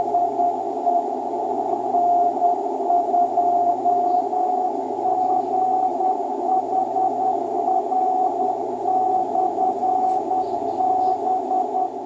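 2-metre (144 MHz) amateur radio CW beacon heard through an all-mode transceiver's receiver: a single Morse code tone keyed on and off over steady receiver hiss. The tone's pitch steps slightly higher about five seconds in as the tuning knob is turned.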